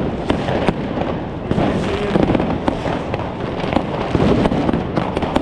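Many fireworks and firecrackers going off at once: a dense, continuous crackle of irregular bangs and pops, with no pause.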